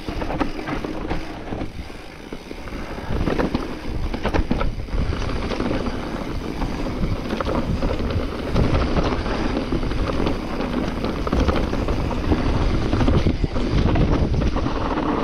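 Wind buffeting the microphone of a camera riding on a mountain bike, over tyre rolling noise and frequent small knocks and rattles of the bike on a rough dirt trail.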